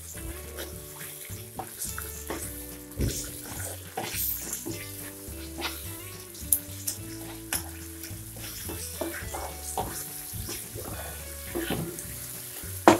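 A spatula stirring and scraping thick, cooked-down tomato chutney around a non-stick pan, with irregular clicks of the spatula against the pan and a soft sizzle from the simmering mixture.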